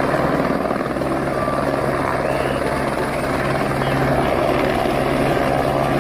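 Light helicopter hovering low over water, its rotor and engine running steadily with a constant low hum.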